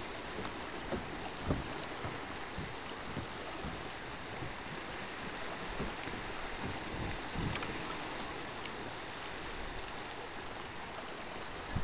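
Cliff Geyser erupting: a steady rush of jetting and splashing hot water. A few brief low thumps break through, the clearest about a second and a half in.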